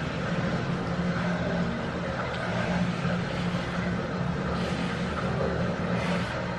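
A steady low mechanical hum with an even hiss behind it, unchanging throughout.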